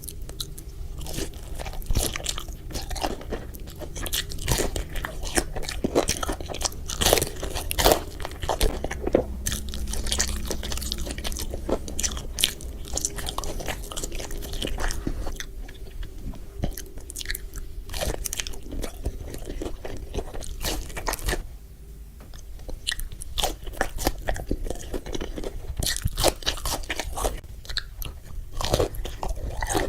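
Close-miked biting and chewing of crispy fried food, with frequent sharp irregular crunches over a steady low hum.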